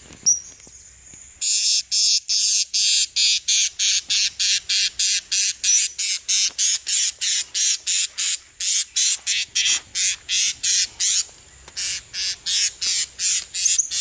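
An animal calling close by: a long, even series of shrill, rasping pulses, about three a second, with one short break about eleven seconds in. A single sharp click comes just after the start.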